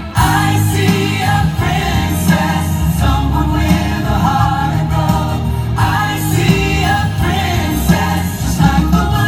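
Show music with a choir singing.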